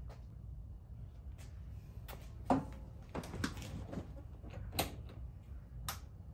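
A person climbing onto and handling a parked scooter: scattered knocks and clicks, the sharpest about two and a half seconds in, over a low steady hum. The engine is not yet running.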